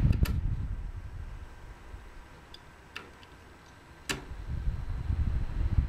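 Slim 100 mm SilenX Effizio low-profile PC fan. Its low airflow rush fades over the first two seconds, leaving a quiet stretch with a few light clicks. A sharp click comes about four seconds in, and then the fan's airflow noise rises again as it ramps up to speed, slowly because of its small motor.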